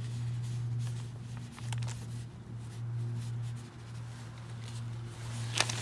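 Sheets of paper rustling as they are handled and leafed through, a few soft crinkles over a steady low hum.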